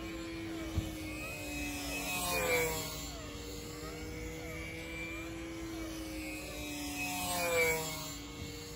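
Control-line stunt model aircraft's motor and propeller running steadily as the model circles the pilot on its lines. The sound swells with a falling pitch as the model passes close, twice, about five seconds apart, once per lap.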